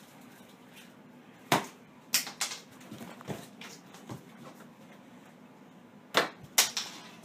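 Sharp plastic clacks of soft-tip darts striking an electronic dartboard, several separate hits: one loud one about a second and a half in, two more soon after, and a close pair of loud ones near the end.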